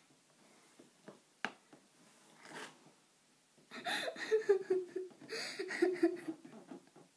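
A girl laughing in breathy bursts from about halfway in, after a quiet stretch broken by a single click.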